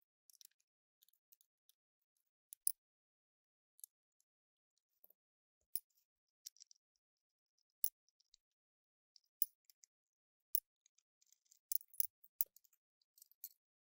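Small sharp metal clicks and taps of a screwdriver and screws as an XLR connector panel is unscrewed and handled. The clicks come singly and scattered, then thicker near the end.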